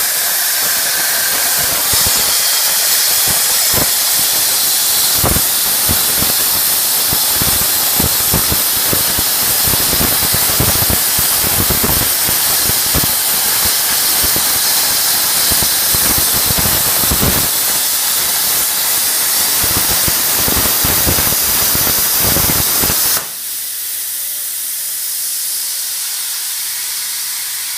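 CNC air plasma cutter torch cutting: a loud steady hiss with irregular crackling. The arc cuts off abruptly about 23 seconds in, leaving a softer steady hiss.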